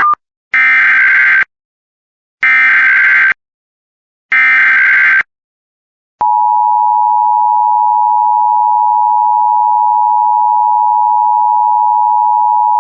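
Emergency Alert System tones: three SAME header data bursts, each just under a second of harsh digital warbling with short gaps between them. About six seconds in, the steady two-tone EAS attention signal (853 and 960 Hz together) begins and holds unbroken. Together they signal the start of an emergency alert activation.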